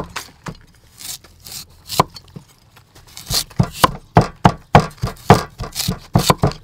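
Cleaver slicing a peeled carrot into flat strips on a chopping board: crisp cuts and knocks of the blade on the board, a few spaced out at first, then several a second from about halfway.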